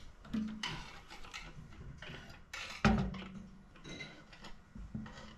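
Plastic fuel pump module being worked down through the opening of a fuel tank: scraping and knocking of plastic against the tank neck, with one sharp knock just under three seconds in.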